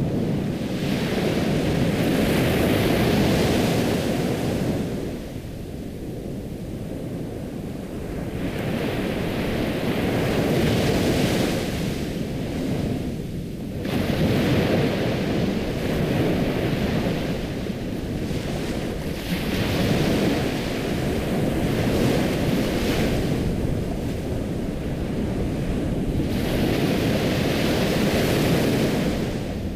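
Ocean surf: waves rolling in and washing back in about five slow swells, each rising and fading over several seconds.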